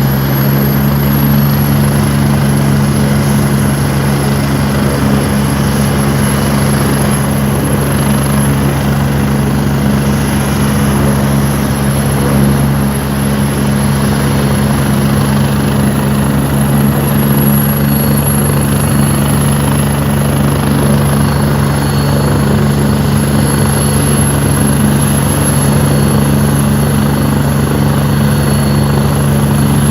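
Medical helicopter running steadily at close range: a constant rotor and turbine drone with a thin high turbine whine above it.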